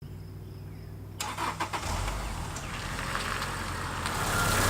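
Car engine idling with a steady low hum, with a few clicks about a second and a half in.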